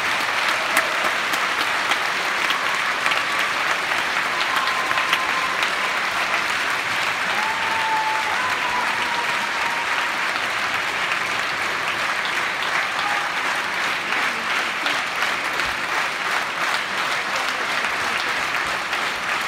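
Large audience applauding steadily, with a few brief calls rising above the clapping.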